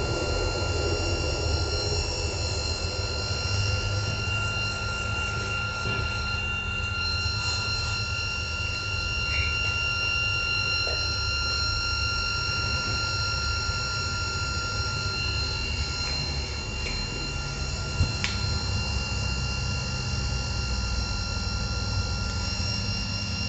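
Crossflow membrane filtration machine running steadily: a constant low hum with a steady high whine from its motor. A single sharp click about 18 seconds in.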